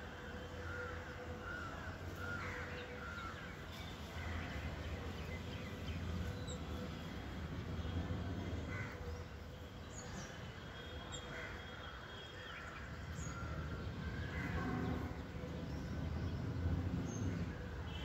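Babblers calling with scattered short chirps and squeaks throughout, over a steady low background rumble.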